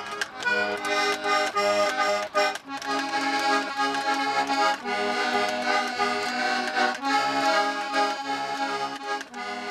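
Instrumental folk tune led by an accordion, with sustained chords over a pulsing bass.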